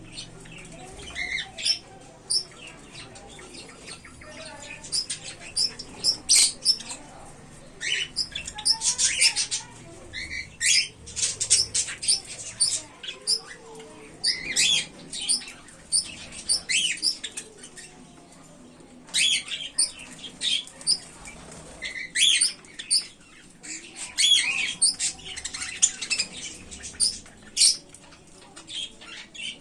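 Bird chick calling: short, high calls repeated in quick clusters, separated by brief pauses.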